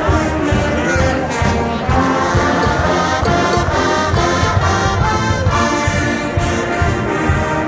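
Brass-led music with a steady beat.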